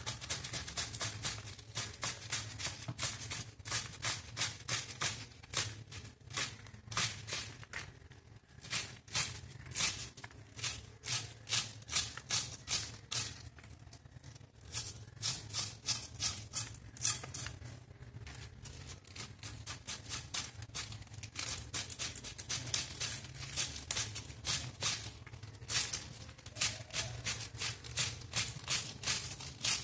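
Cabbage being shredded on a bonti, a curved blade fixed upright on a floor stand. Crisp, rapid cutting strokes come about four a second, in runs with short pauses.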